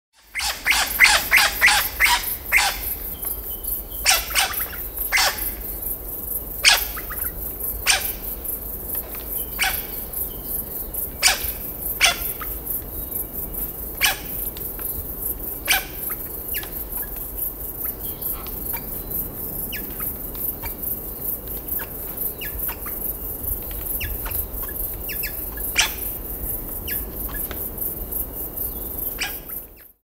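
A bird giving short, sharp squeaks at irregular intervals, close together in the first few seconds and then about one every second or two, over a steady high hiss.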